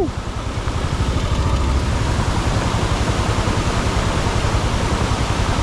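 Steady rushing roar of a monsoon waterfall, with wind buffeting the microphone in a flickering low rumble.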